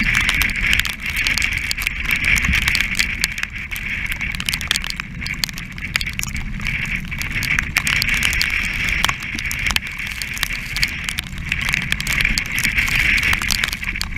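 Strong wind rumbling on the microphone, with spray crackling against the camera and a rushing hiss of water that swells and fades every few seconds as the yacht drives through heavy seas.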